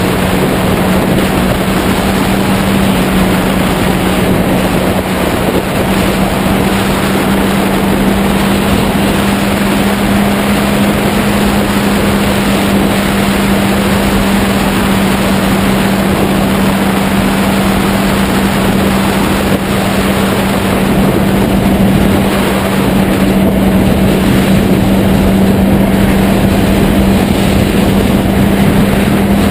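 Heavy wind noise buffeting a tank-mounted camera microphone over the steady drone of a Yamaha YZF-R6's inline-four engine cruising at an even speed.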